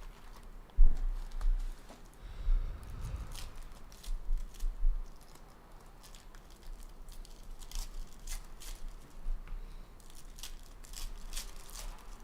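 Hockey card packs being opened by hand: wrappers tearing and crinkling in quick irregular crackles, with a few low thumps of handling, the loudest about a second in.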